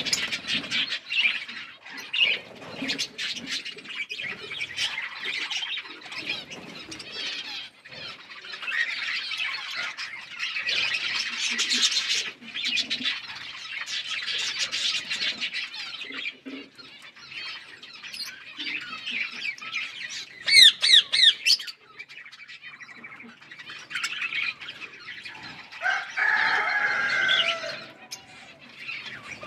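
Parrots chirping and chattering continuously, with a loud run of quick squawks about two-thirds of the way through and a longer, harsher call near the end.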